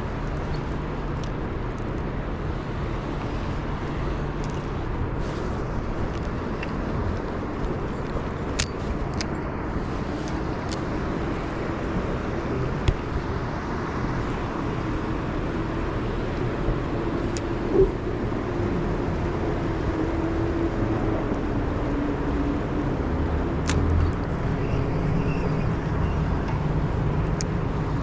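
Steady rushing noise of a fast, heavy river current, with a faint wavering hum through the middle and a few light clicks.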